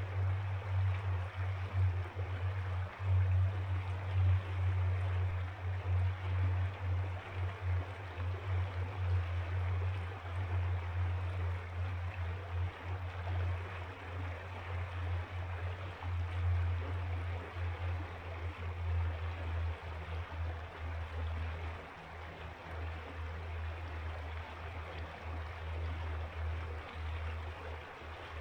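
Ice-cold mountain river flowing in a steady, even rush, with a deep low rumble underneath.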